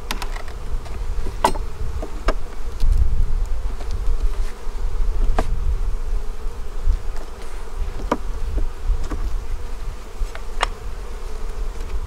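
A honeybee colony humming steadily from an open hive, with a handful of sharp clicks from a hive tool prying wooden frames apart, over a low rumble.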